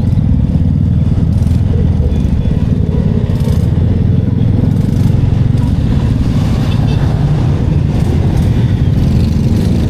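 Motorcycle running on the move, a steady loud rumble mixed with wind noise on the microphone.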